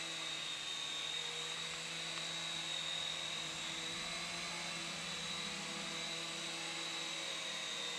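Syma S107 coaxial mini RC helicopter in flight: its small electric motors give a steady high-pitched whine over the whir of its twin rotors.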